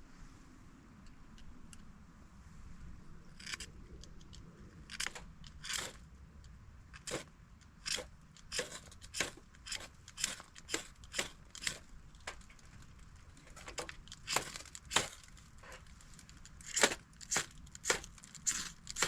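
A campfire being lit: a string of short, sharp, scratchy crackles and scrapes, irregular at about one to two a second, starting a few seconds in.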